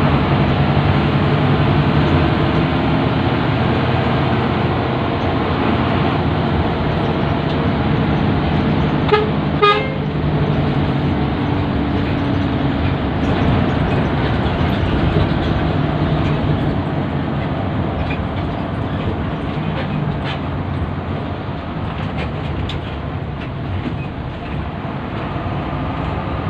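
Intercity bus driving, its engine and road noise running steadily, with two short horn toots in quick succession about nine seconds in.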